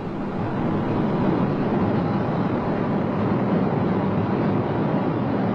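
Steady din of construction machinery, an even mechanical noise with a faint hum running through it.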